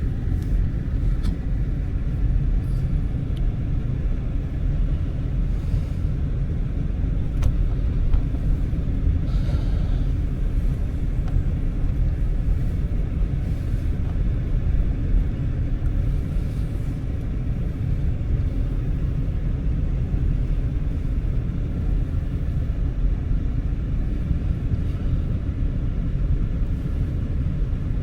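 Steady low rumble of a vehicle driving on a snowy road, heard from inside the cabin: engine and tyre noise.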